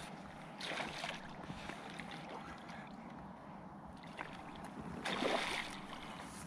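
A hooked asp splashing at the water's surface as it is played in, with two bursts of splashing, one just under a second in and a longer one about five seconds in, over a faint steady hiss.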